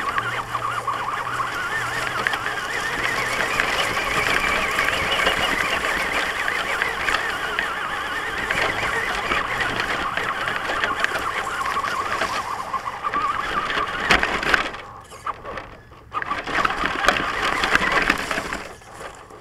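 Onboard sound of a Traxxas Stampede RC truck driving over grass: the electric motor and gears whine, wavering in pitch, with rattles and knocks from the chassis. The sound drops away about fifteen seconds in, picks up again briefly, then fades near the end.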